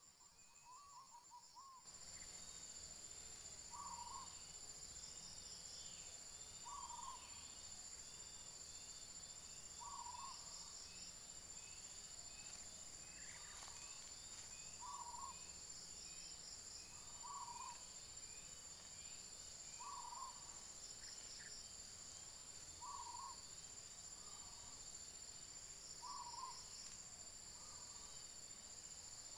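Insects buzzing steadily at a high pitch, with a bird's short hoot repeating about every two and a half to three seconds, about ten times. The ambience grows louder about two seconds in.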